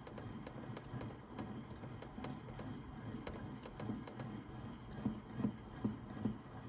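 Toy Bosch Logixx 8 washing machine running: a small motor turning the plastic drum, with light clicking and irregular soft knocks, four louder knocks about half a second apart near the end.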